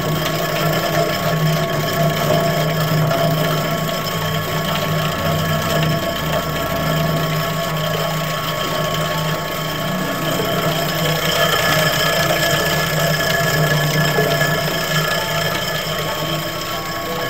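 Large meat bowl cutter running steadily: a motor hum with a thin steady whine as the rotating bowl carries meat through the spinning blades under the hood, chopping it finer.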